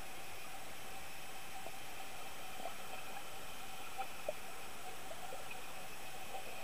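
Steady hiss with faint steady hum tones from an underwater camera's microphone in its housing, with a few faint clicks, the two clearest about four seconds in.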